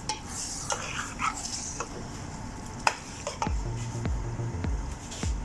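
Minced beef and onion frying in oil with a steady sizzle, while a spoon stirs the pan, scraping and knocking against it several times.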